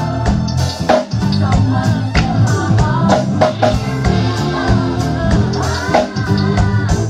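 Live band playing a slow R&B groove: electric bass, keyboard and a drum kit with steady kick and snare hits.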